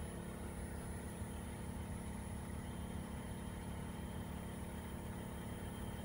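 Variable-capacity air-conditioning system's outdoor unit running: a steady hum with several constant tones from the compressor and condenser fan.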